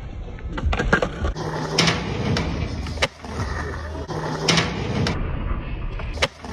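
Skateboard wheels rolling on concrete, with several sharp clacks of the board popping and landing.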